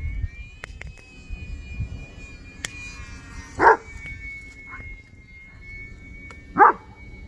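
A dog barks twice, loudly, about three and a half and six and a half seconds in, with a fainter bark between. Under it runs the steady high whine of the small electric RC plane's motor, wavering slightly in pitch.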